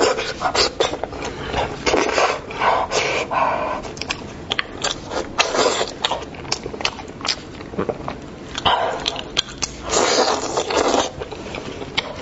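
Close-miked eating sounds: wet chewing and lip-smacking of meat from cooked sheep and goat heads, in an irregular run of short clicks and longer squelching bursts. Plastic-gloved fingers tear the meat apart.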